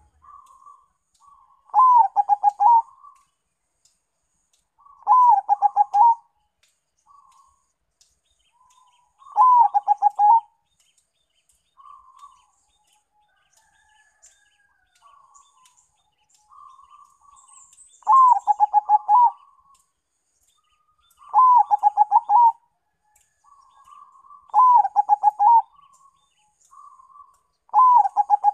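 Zebra dove (perkutut), a Bangkok × local crossbred, singing its staccato cooing song: seven loud phrases, each about a second of quick-fire coo notes, repeating every few seconds with a longer pause in the middle. Softer single coos come between the phrases.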